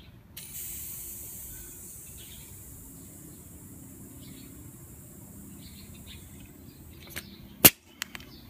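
Compressed air hissing steadily through a tyre-inflator chuck into a galvanized-pipe pressure chamber as it is filled. Near the end, a sharp click as the chuck is pulled off the chamber's valve.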